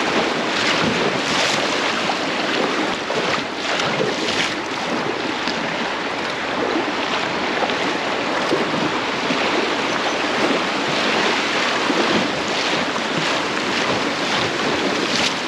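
River water rushing and splashing around an inflatable packraft in a riffle, a steady loud rush with repeated sharper splashes.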